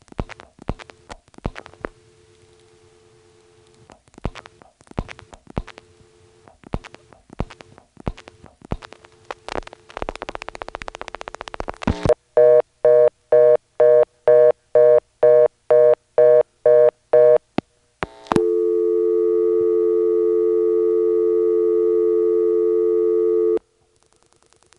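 Telephone dial tone from an NX1 crossbar office broken by four groups of dial-pulse clicks as 1 and an area code are dialed. After the third area-code digit comes about two seconds of dense crackling: the noise this office makes after the third digit, which the caller suspects has to do with toll restriction. Then a tone pulsing about twice a second as the toll call is refused, followed by a steady tone for about five seconds that cuts off.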